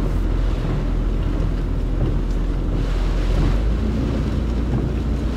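Steady low rumble inside a slowly moving car, with wind and rain noise over it.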